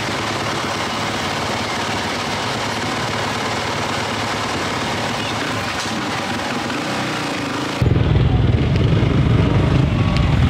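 Yamaha 450 motocross bike's single-cylinder four-stroke engine running, the sound jumping suddenly to a much louder low rumble about eight seconds in.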